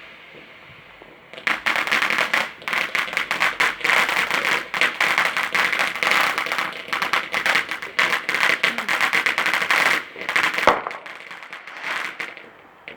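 Firework crackling: after a low hiss, it breaks about a second and a half in into a rapid, dense string of small cracks for about nine seconds, then thins out with a last short burst near the end.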